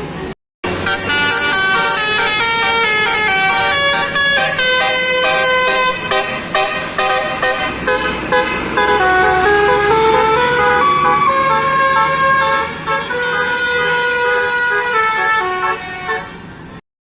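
Tour bus's Basuri 'telolet' melodic air horn playing a long multi-note tune, its notes changing pitch in steps. It starts after a brief drop-out and cuts off abruptly just before the end.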